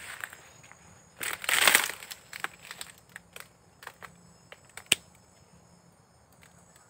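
Someone pushing on foot through dense undergrowth: a loud rustle of leaves and stems about a second in, then scattered snaps and crackles of twigs and dry stems underfoot, the sharpest near the five-second mark.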